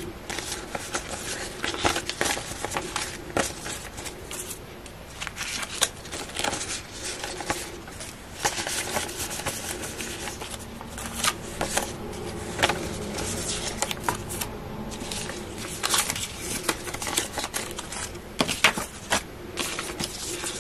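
Plastic polymer banknotes being handled and sorted by hand, crinkling, snapping and rustling irregularly as they are fanned, shuffled and laid down on the desk.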